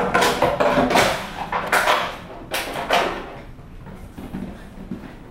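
Empty plastic water bottle clattering and crinkling across a hardwood floor as a puppy pounces on it and bats it about: a quick run of sharp clatters over the first three seconds, then only a few light knocks.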